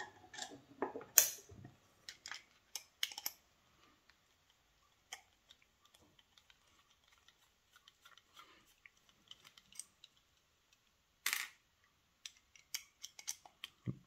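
Scattered clicks and taps of small metal lock parts and a screwdriver being handled while the lock is taken apart, with a sharp click about a second in, another near the end, and a run of light clicks just before the end.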